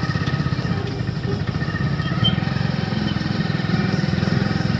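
A vehicle engine running steadily under way, with a fast, even low throb.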